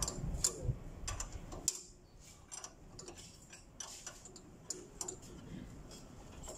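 Light metallic clicking of a hand wrench working a bolt on a forklift's exhaust pipe bracket as it is fitted: an uneven string of ticks, a few a second, growing fainter about two seconds in.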